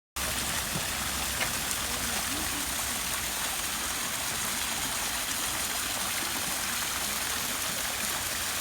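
Garden fountain water splashing into its basin, a steady rushing noise that cuts in abruptly just after the start.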